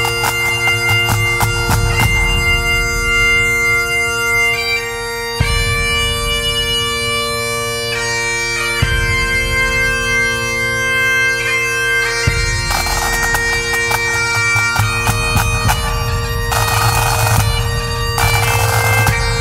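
Background music: a bagpipe tune over a steady drone, with drums.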